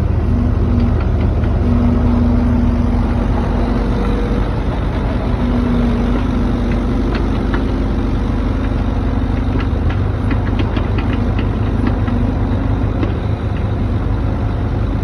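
Skid steer engine running steadily, with a few light clicks and clanks in the middle.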